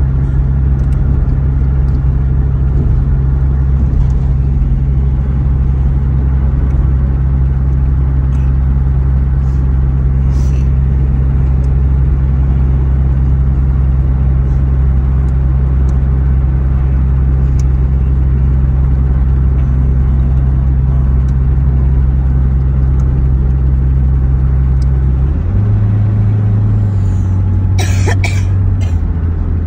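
Steady low drone of a van's engine and road noise heard from inside the cabin at highway speed. Near the end the drone changes pitch, and a short cluster of sharp clicks sounds.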